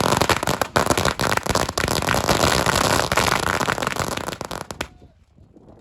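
Fireworks crackling: a dense run of rapid pops over a continuous hiss, cutting off suddenly near the end.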